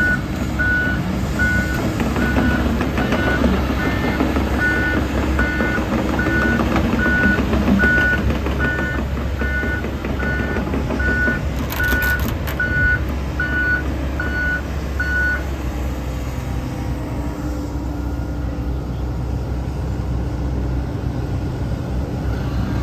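John Deere 75 P-Tier mid-size excavator's engine and hydraulics running as it moves on its tracks, its reverse alarm beeping at an even pace until about two-thirds through, then stopping. A brief clatter about halfway in.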